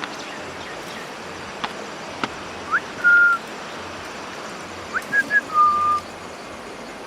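Clear whistled notes, each a quick rising slur into a held note, come twice: once about three seconds in and once, after a few short notes, near the end. They sound over the steady rush of a river.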